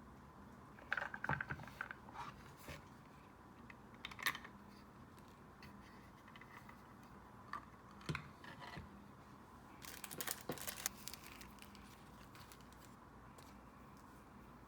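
Light desk-handling sounds of paper and stationery: short clusters of rustles and small taps about a second in, around four seconds, around eight seconds and again around ten to eleven seconds, over a faint steady hum.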